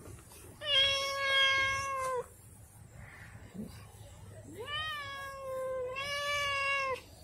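Tabby cat giving two long, drawn-out yowls while being stroked, the second sliding up in pitch at its start and held for over two seconds: the agitated, worked-up yowling of a cat that is riled by petting.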